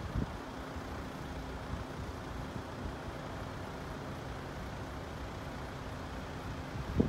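A road vehicle's engine idling with a steady low hum.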